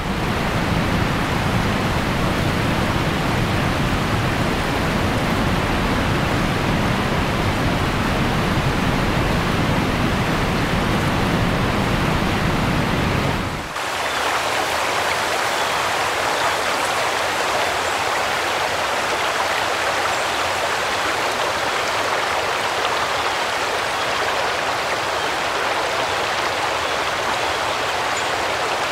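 Floodwater flowing over a road, a steady rushing noise. About halfway through, the deep rumble drops out and a thinner, brighter hiss remains.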